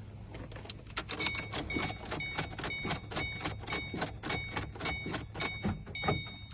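Car's electronic warning chime sounding rapidly, about four strikes a second with a ringing high tone, starting about a second in.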